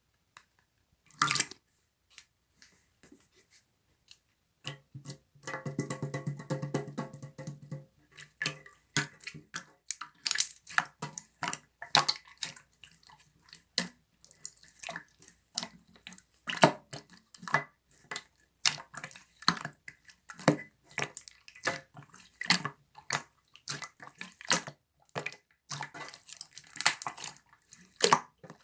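Slime being squeezed, poked and stretched by hand: a run of sharp, wet pops and clicks, with a low buzzing squelch from about five to eight seconds in.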